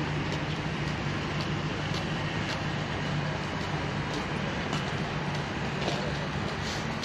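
Steady city traffic noise with a low, even engine drone, and faint scattered clicks of footsteps on the path.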